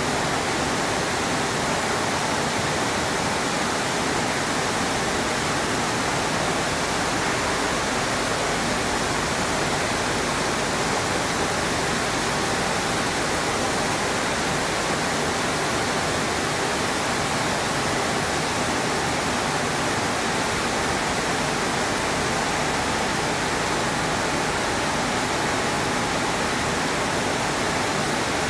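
Maize flour mill machinery running: a steady, unbroken rushing din from the roller mills, fans and pneumatic conveying, with a faint steady whine.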